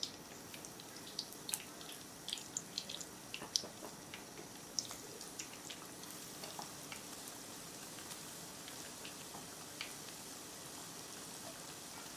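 Starch-coated potato strips deep-frying in hot oil, left unstirred: a faint steady hiss with sharp crackling pops as water cooks out of the strips. The popping is dense for the first five seconds or so, then thins out.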